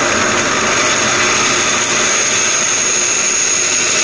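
Bench drill press running with a cone-shaped cutter taking metal off the crown of a hand-held aluminium piston: a steady motor and cutting noise with a constant high-pitched whine.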